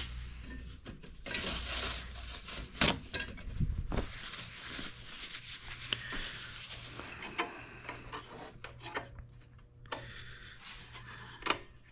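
Hands being wiped with a blue shop towel, a dry rustling and rubbing, broken by small sharp clicks as tools and the rear brake cable fittings are handled.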